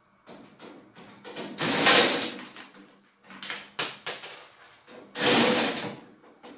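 Cordless driver running in two bursts of about a second each, backing screws out of an oven's sheet-metal back panel, with small clicks and knocks of handling between them.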